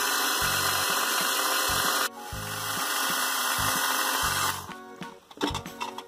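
Battery-operated toy blender running with small candies in its jar: a steady whir of about two seconds, a brief break, then another run of about two and a half seconds, over background music.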